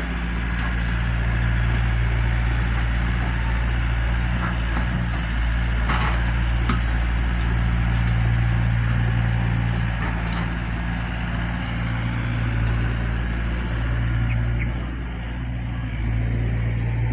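Zoomlion excavator's diesel engine running with a steady low drone, getting a little louder a second or two in and easing briefly near the end, with a few short knocks over it.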